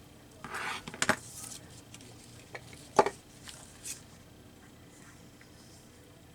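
Scissors cutting paper: a brief paper rustle, then a few sharp clicks, the loudest about three seconds in, before the handling goes quiet.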